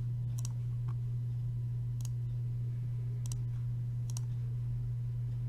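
A few sharp computer mouse clicks, spaced about a second apart, over a steady low hum.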